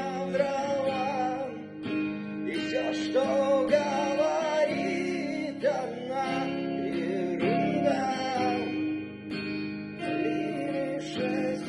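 Acoustic guitar strummed with a voice carrying a wavering melody over it, a dip in the music twice.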